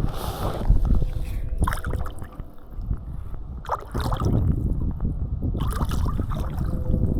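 Wind rumbling on the microphone over running creek water, dipping briefly about two and a half seconds in.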